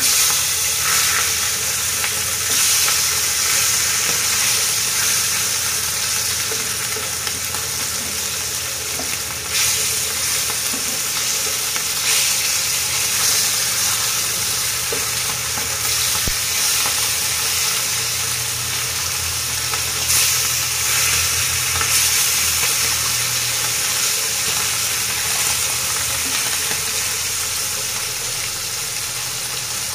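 Hilsa fish steaks sizzling steadily as they shallow-fry in hot oil in a frying pan, with a spatula turning the pieces over.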